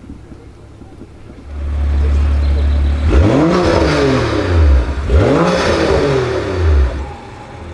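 BMW M2 F87's turbocharged straight-six through an Armytrix aftermarket exhaust, idling and then blipped twice, each rev rising quickly and falling back to idle. The idle grows louder about a second and a half in.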